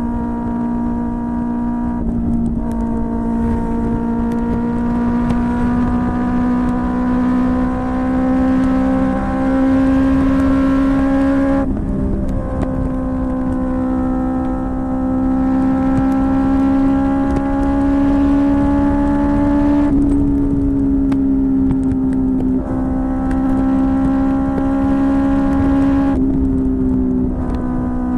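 QJMotor SRK600 inline-four motorcycle engine with a Yoshimura R11 exhaust running at a steady, moderate speed under way. Its note climbs slowly, then drops abruptly about five times at gear or throttle changes. A low rumble of wind on the microphone runs underneath.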